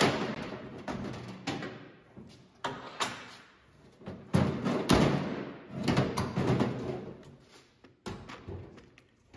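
Knocks, thuds and scraping from a truck-bed toolbox being handled and fitted, about ten sharp hits at irregular intervals, each dying away quickly.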